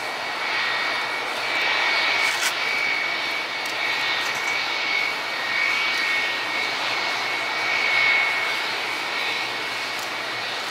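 Jet engines of a Boeing 757 at taxi power: a steady whine with a high tone over a broad rush, swelling and easing a little every couple of seconds.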